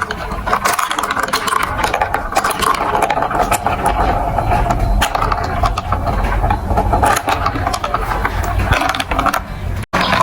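Marbles rolling and rattling along a plastic building-block marble run, a continuous rumble with many quick clicks. The sound cuts out briefly just before the end.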